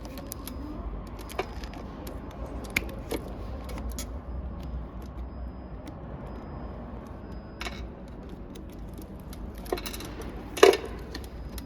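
Small gears being turned and worked out from behind a 6-position selector switch: scattered light clicks and rattles, with one louder click near the end, over a steady low hum.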